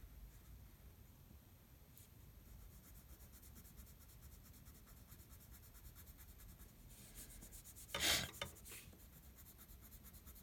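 Faint, rapid scratchy strokes of a drawing tool colouring on paper, with one brief, louder rush of noise about eight seconds in.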